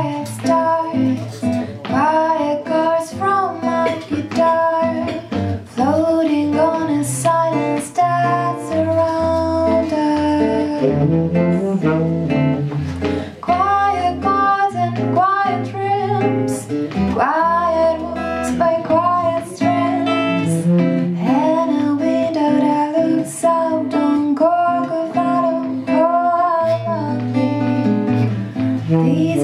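Live bossa nova with a small acoustic group: two acoustic guitars strumming and plucking chords, a woman singing the melody, and a tenor saxophone playing along.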